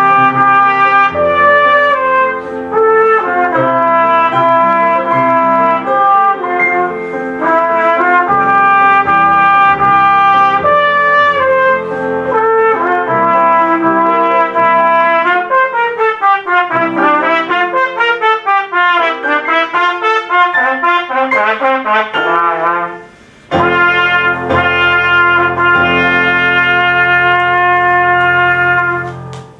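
Trumpet playing a movement of a piece with electric keyboard accompaniment: held melody notes, a passage of fast running notes about halfway through, a brief break, then a long held final note over a keyboard chord that ends the piece.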